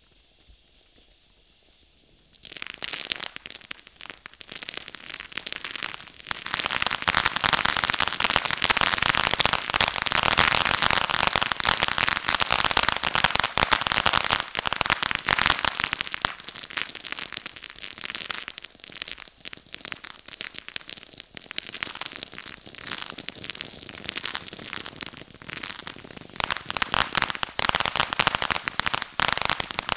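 Crystal Geyser firework fountain spraying crackling stars: after a couple of seconds of near silence, a dense crackle starts suddenly, builds to its loudest, eases off through the middle and picks up again near the end.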